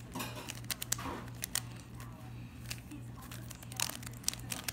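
Plastic puzzle cube being twisted to scramble it: irregular clicks and clacks as the layers turn.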